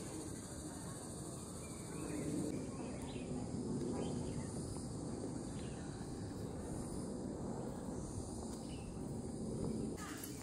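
Steady high-pitched drone of insects in the forest, a little louder for the first couple of seconds, over a low outdoor background noise.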